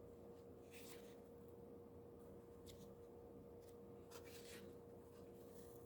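Near silence with a faint steady hum, and a few brief, faint rustles of a paperback guidebook's pages being turned.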